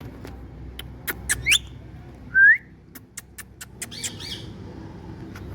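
Indian ringneck parakeet calling: short rising whistles, the loudest about two and a half seconds in, then a couple of harsher, rougher calls around four seconds, among a scatter of sharp clicks.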